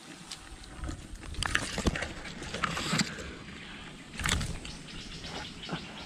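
Irregular rustling with sharp clicks and snaps, the loudest cluster about four seconds in.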